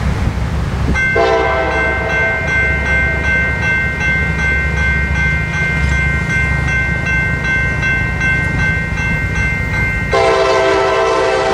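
Approaching train's locomotive air horn sounding a multi-note chord, starting about a second in and held, then jumping louder near the end.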